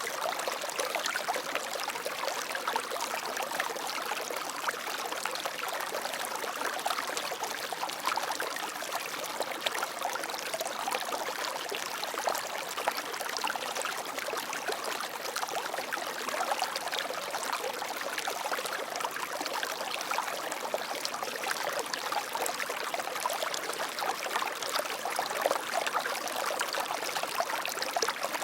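Water flowing steadily in a stream, a continuous splashing rush with fine trickling detail.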